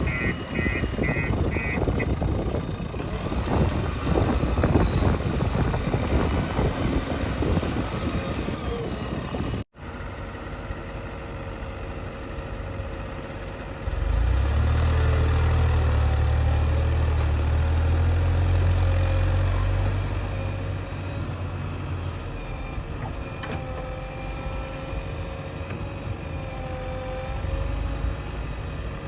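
Diesel engine of a JCB 3DX backhoe loader at work. A dense rattling, clattering noise fills the first ten seconds; after a cut the engine runs steadily, then gets louder and deeper from about 14 to 22 seconds as it comes under load, before settling back.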